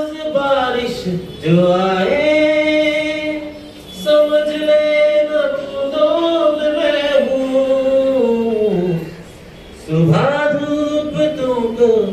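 A man singing a song solo into a microphone, holding long notes in phrases of a few seconds with short breaks between them.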